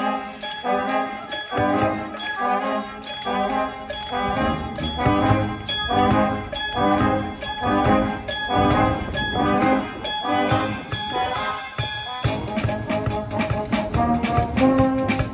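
Student brass band playing live: brass chords with trombones and sousaphones over a drum kit and cymbals, keeping a steady beat of about two strokes a second. The arrangement changes about twelve seconds in.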